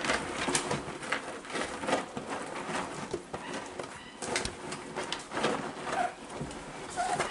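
A litter of 4½-week-old cockapoo puppies scrabbling and shuffling about, with scratchy clicks and rustles and a few soft, short whimpering calls near the end.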